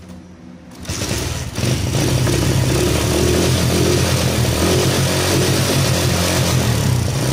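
Honda Win motorcycle engine being kick-started. It catches about a second and a half in and then runs steadily. It fires now that its fuel-soaked spark plug has been dried and the flooded combustion chamber cleared.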